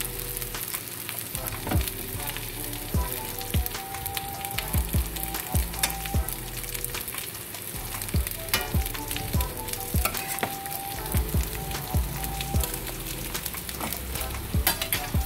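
Tempeh pieces sizzling in hot oil in a frying pan, with a spatula knocking and scraping against the pan every second or so as the pieces are turned.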